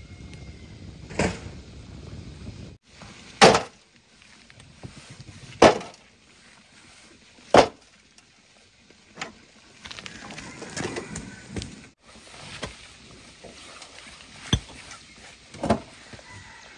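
Concrete blocks being stacked one at a time, each landing on another block with a sharp knock, about eight knocks, roughly every two seconds at first.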